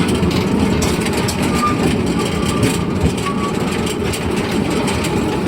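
Steady rumble and clatter of a narrow-gauge forest railway train running along its track, heard from aboard a carriage, with a few faint short squeaks.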